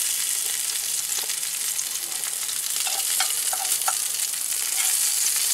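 Fluke (summer flounder) fillets sizzling steadily as they fry in butter in a cast-iron skillet. A few light clinks from a fork prodding the fillets in the pan come about three to four seconds in.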